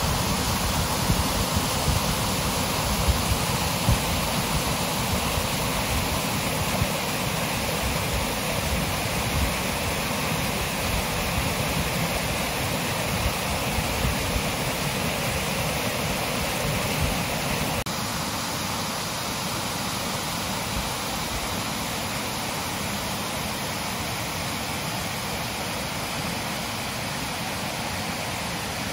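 Spring-fed stream rushing steadily, with a low rumble in the first part; about eighteen seconds in the sound drops a little and loses the rumble, as at a change of spot along the water.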